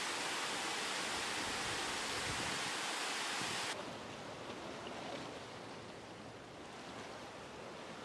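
Water of a small waterfall rushing steadily over rocks. Just under four seconds in it cuts abruptly to a quieter wash of sea waves on a rocky shore.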